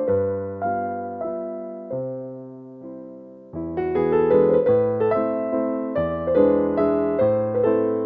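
Background piano music: gentle notes and chords, sparse and fading for a moment, then fuller and louder from about three and a half seconds in.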